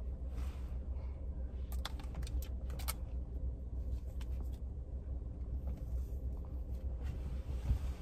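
Car engine idling, heard inside the cabin as a low steady rumble, with a quick run of light clicks about two to three seconds in.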